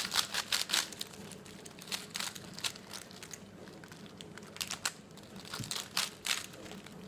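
Rubik's cube being scrambled by hand: the plastic layers turning with quick, irregular clicks, in clusters of several turns.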